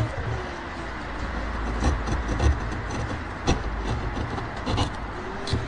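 A hand-pushed wood chisel paring slivers from a hardwood joint: the blade scrapes through the fibres with a few sharp cracking ticks as the wood gives, over a low steady rumble.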